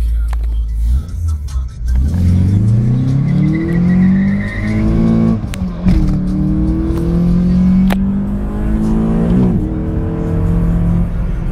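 Volkswagen Golf Mk2 GTI 16v's 1.8-litre four-cylinder engine accelerating hard. After a low rumble the revs climb steadily, drop at a gear change about five and a half seconds in, and climb again. A second shift comes near the end, and the engine then pulls at steady revs.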